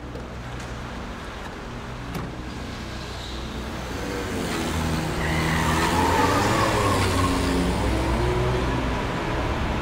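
Car engine running, then revving up and growing louder from about four seconds in, as a car pulls away.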